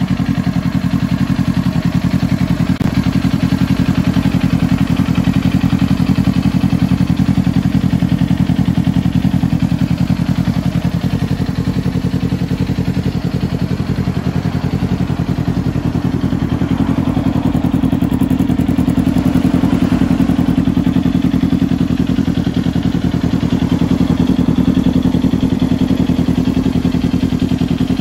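Kawasaki Ninja 400's parallel-twin engine idling steadily through an aftermarket exhaust muffler.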